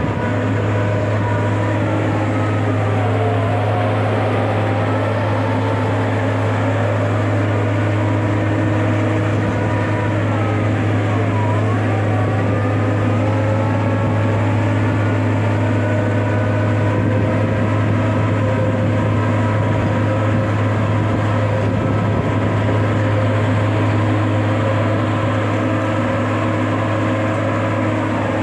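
A CFA piling rig's diesel engine and hydraulics run steadily under load while the continuous flight auger drills. The sound is a heavy low drone with a hydraulic whine above it that dips in pitch and recovers about eleven seconds in.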